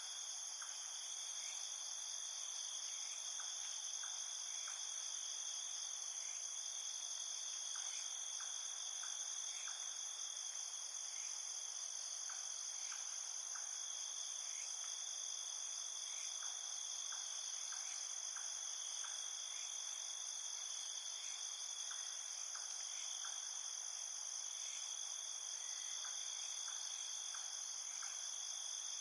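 Night chorus of crickets in a field: a steady high-pitched trilling with short chirps scattered irregularly throughout.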